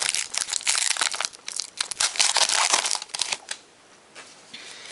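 Trading-card pack wrapper crinkling and tearing as it is ripped open, a dense crackle that stops about three and a half seconds in.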